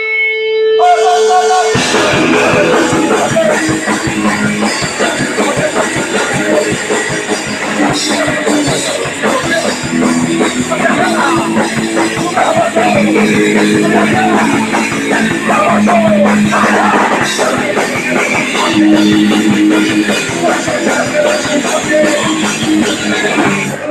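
Live punk rock band playing loud, with distorted electric guitars and a drum kit. A held guitar note opens it, and the full band crashes in under two seconds in.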